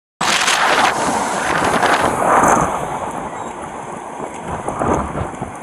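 Strong wind buffeting a police body camera's microphone, cutting in suddenly and surging in gusts.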